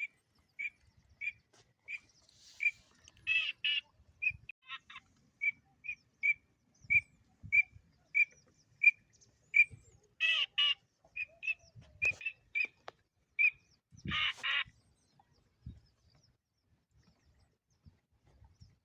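Bird calls: a short, high note repeated evenly about one and a half times a second, broken by three louder, harsher calls. The calls stop a few seconds before the end.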